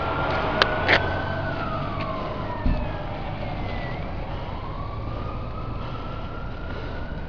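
Fire apparatus siren sounding a slow wail that rises, falls and rises again over a low engine rumble, a mechanical Federal Q type siren, fading slowly as the truck moves off. Two sharp clicks come about a second in, and a low thump comes near three seconds.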